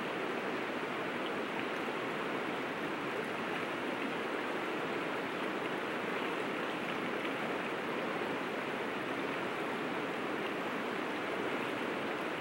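River water flowing, a steady even rushing noise that doesn't change.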